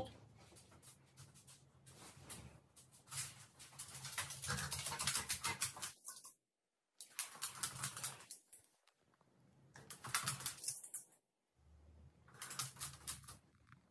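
A Rottweiler's claws clicking on a wooden floor as it walks, in short runs of quick clicks broken by pauses.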